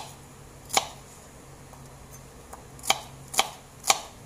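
Kitchen knife chopping a red onion on a cutting board: five sharp knife strikes on the board, irregularly spaced, the last three about half a second apart near the end.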